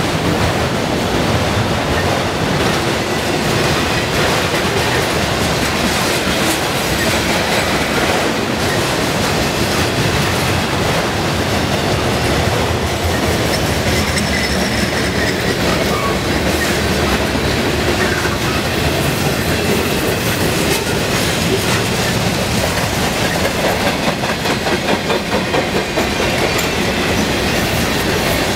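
A train passing close by: a steady, loud rumble with the clatter of its wheels on the track.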